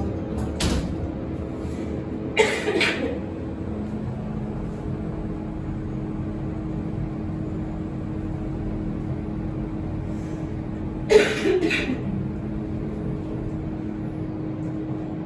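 Delta elevator car running, a steady hum with a couple of low tones. Two short, sharp noises break in, about two and a half seconds and eleven seconds in.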